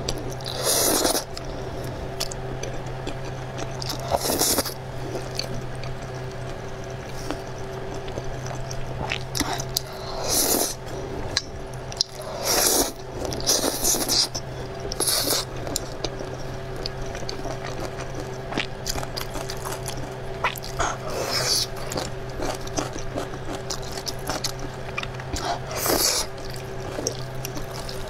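A person eating saucy noodles up close: about eight loud wet slurps at irregular intervals, with quieter chewing and mouth sounds between them, over a steady low hum.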